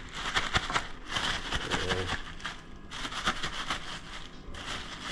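Thin plastic bag crinkling and rustling in several short bursts as it is handled and shaken, with flour-coated food inside.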